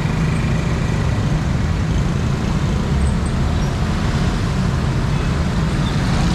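Dense road traffic passing at close range: many motor scooters and motorcycles with a few cars, their engines running together in a steady hum.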